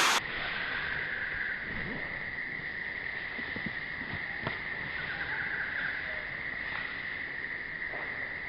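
A steady, high-pitched drone of insects in the forest, with faint rustling footsteps through grass.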